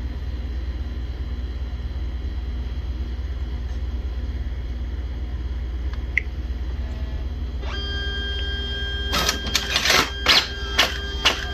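Brother MFC-J4535DW inkjet all-in-one starting a copy job: a short beep from the touchscreen about six seconds in, then its mechanism starts whirring about a second and a half later, and a fast series of clacks begins near the end as the machine scans and feeds paper.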